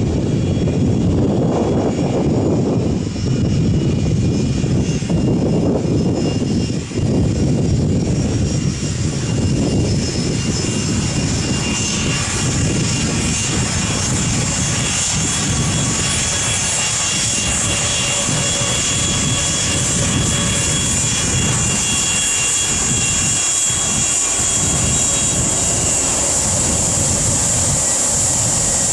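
Boeing 757-200's Rolls-Royce RB211 turbofans running at taxi power as the jet rolls and turns close by. A low rumble dominates at first and gives way to a steady high-pitched whine that grows louder towards the end.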